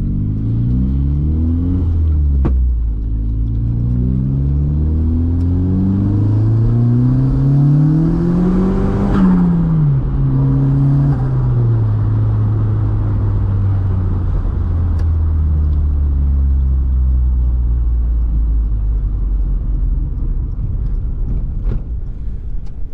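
Mk2 VW Golf's 1.8T turbocharged four-cylinder engine pulling hard and rising in revs, with a quick gear change about two and a half seconds in and a longer climb to about nine seconds. The revs then drop sharply as the driver lifts off, and the engine runs on steadily at lower revs, slowly falling as the car slows.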